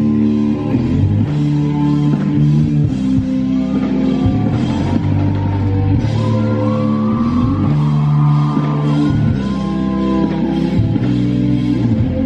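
Live rock band playing an instrumental passage on distorted electric guitars and drum kit through a large PA, with a high part sliding up and down in pitch through the middle.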